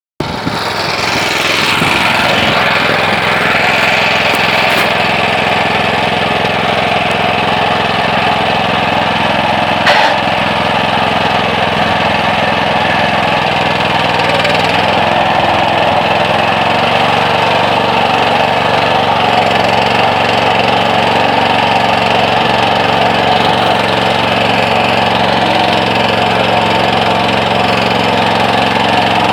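Motor Sich walk-behind tractor engine running steadily, working under the load of a loaded trailer. A single sharp knock about ten seconds in.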